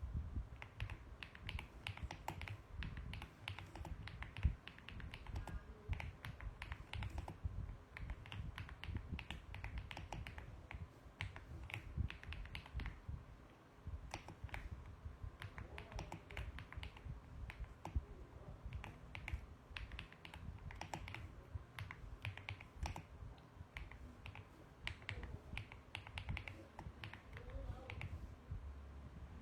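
Typing on a mechanical keyboard: a fast, uneven run of key clicks, with a short pause about halfway through.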